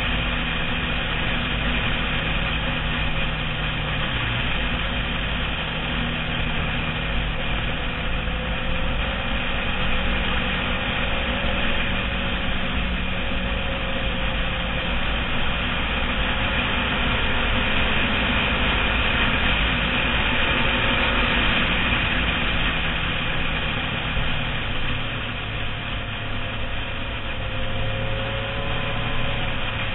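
Motorcycle engine running at road speed under wind rush, its steady note stepping in pitch a few times as the throttle or gear changes.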